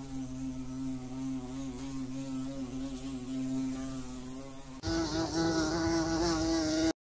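A swarm of insects buzzing in a steady hum. A little before the end it switches abruptly to a louder, higher-pitched buzz, then cuts off suddenly.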